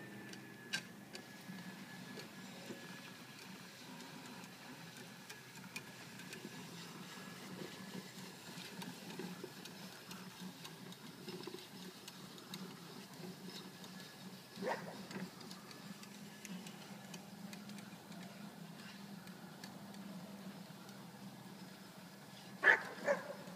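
Low, steady outdoor background with a few faint clicks, broken by a short dog bark about two-thirds of the way through and two louder, sharp barks in quick succession near the end.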